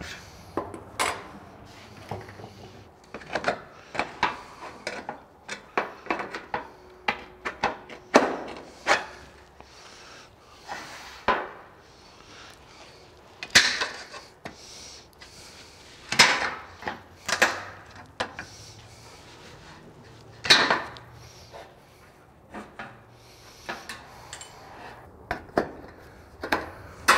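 Hand work on a steel standing seam roofing panel at a wooden bench: tin snips cutting the metal, and the panel and hand tools knocking against the bench. It comes as a string of irregular clicks and clacks, with a few louder snaps several seconds apart.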